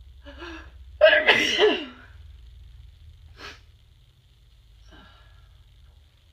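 A woman with a head cold sneezes once, loudly, about a second in, after a short catching breath. A brief sniff follows a couple of seconds later.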